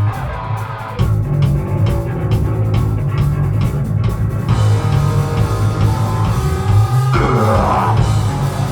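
A live rock band playing loud and heavy: distorted electric guitar, bass and drums, with no vocals. The full band comes in harder about a second in.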